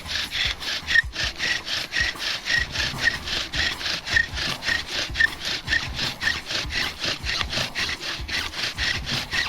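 Bow drill at work: a wooden spindle driven back and forth by the bow, grinding in the notched hearth-board divot in a fast, even rhythm of rasping strokes with a short squeak on many of them. The board is already smoking, the stage at which char dust builds toward an ember.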